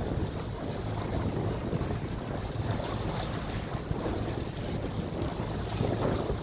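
Wind buffeting the microphone over choppy open water, a steady rushing noise with the wash of small waves.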